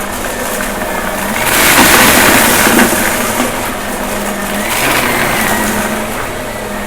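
Shark vacuum cleaner running with a steady motor hum. The noise swells louder about a second and a half in and again around five seconds.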